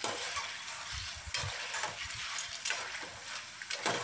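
Thin strips of raw jackfruit deep-frying in hot oil, a steady sizzle, the chips now crisp and golden. A metal slotted spoon stirs and lifts them in the pan, with a few sharp clicks.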